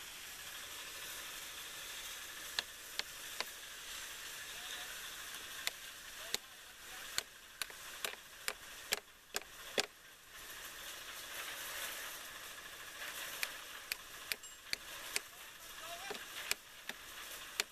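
Sharp, irregular knocks of a hand hammer striking clay clumps and broken stone in a foundation trench, coming in two quick runs, over a steady hiss.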